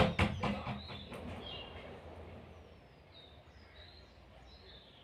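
Faint small-bird chirps: short, high, downward-sliding notes repeating every half second or so from about halfway in. A few soft knocks sound right at the start.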